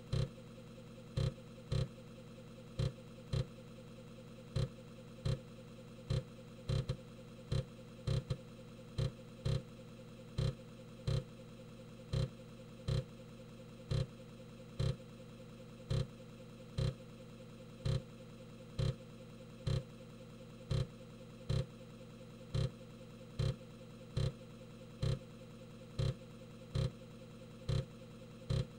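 Emulated floppy disk drive noises: a steady drive-motor hum with sharp head-stepping clicks about one to two times a second at uneven spacing, as the drive keeps reading the disk during compilation.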